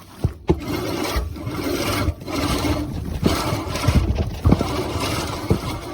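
Earthwise 16-inch seven-blade push reel mower running over grass, its spinning reel whirring and clattering in spurts that drop off briefly every second or so between pushes.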